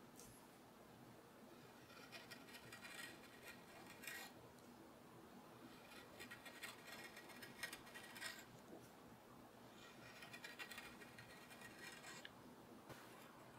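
A 3 mm carving knife paring thin curled shavings from walnut wood: faint, crisp scraping cuts in short runs a few seconds apart.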